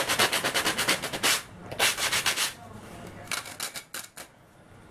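Sandpaper rubbed back and forth by hand over the edge of a thin wooden model-boat part, sanding it flush. Rapid scratchy strokes in a long run, a short burst about two seconds in, then a few slower strokes before it stops near the end.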